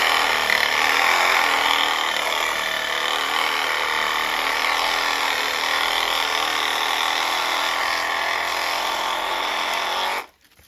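Bauer 20-volt cordless reciprocating saw with a brushed motor, sawing through a pine branch close to the trunk. It runs steadily for about ten seconds, then stops abruptly near the end as the cut is finished.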